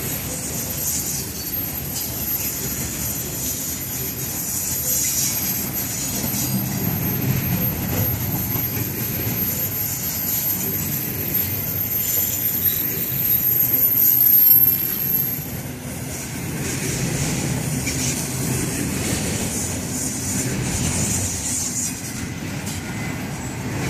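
Florida East Coast Railway intermodal freight cars, double-stack container well cars and trailer flat cars, rolling past close by: a steady rumble of steel wheels on the rails. A thin high wheel squeal runs over it and stops about fifteen seconds in, just after the loudest moment.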